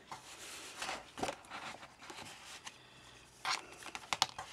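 Craft materials being handled on a table: paper and heat-textured fabric rustling and sliding, with a few sharp clicks near the end.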